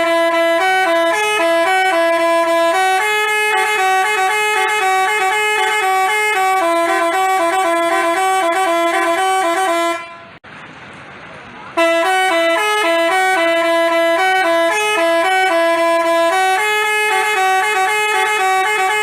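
Basuri telolet bus horn, a multi-tone horn playing a tune of stepped notes. About ten seconds in it breaks off for roughly two seconds, leaving only a hiss, then plays on.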